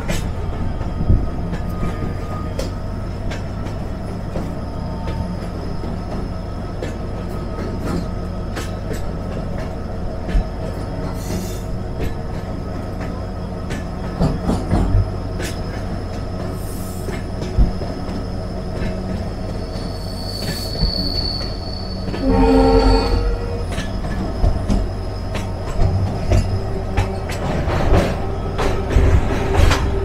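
Passenger train running along the track, heard from aboard a coach: a steady rumble with irregular clacks of the wheels over rail joints and a thin high wheel squeal that grows louder around twenty seconds in. A short train horn blast sounds a little after that.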